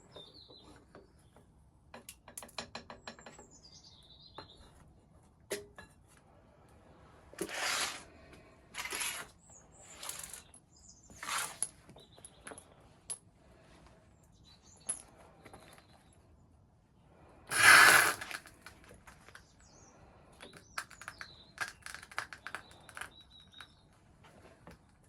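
Scattered clicks and clinks of handling, with several short noisy strokes about half a second long; the loudest comes about two-thirds of the way through. Birds chirp in the background near the start.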